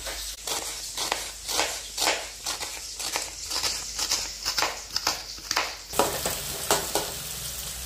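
Kitchen knife slicing onion on a wooden cutting board, quick knocks of the blade on the board about three a second. Near the end, onion slices stirred with a metal spatula in a pan of hot sunflower oil, sizzling.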